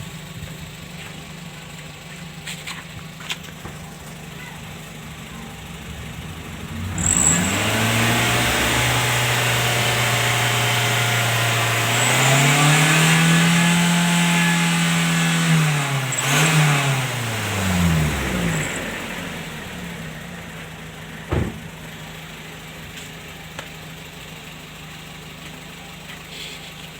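Engine exhaust fitted with a clip-on turbo whistle: the engine idles, then is revved up in two steps and held for several seconds with a loud airy hiss over the engine note, blipped once, and let fall back to idle. The whistle gives only a modest hiss rather than a true turbo whistle.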